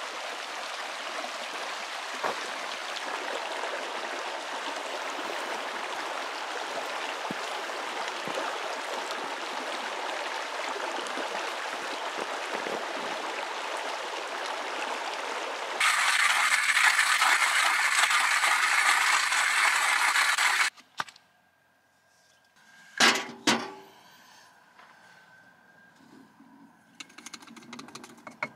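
Shallow mountain creek running over rocks, a steady rush of water; about sixteen seconds in the rush turns louder and hissier for about five seconds, then cuts off abruptly. After a near-quiet stretch, two sharp knocks or clinks close together.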